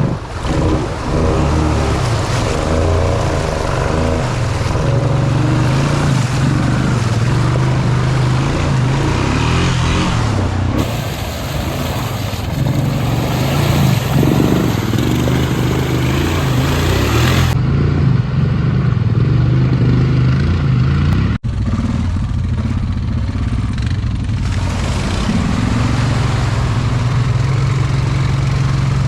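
Honda Foreman 520 ATV's single-cylinder engine running and revving as it works through mud, the sound changing abruptly at several edit cuts.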